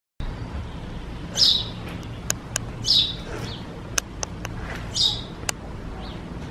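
A bird calling three times, each a short falling chirp about a second and a half apart, over a steady low hum and a few sharp knocks from a construction site.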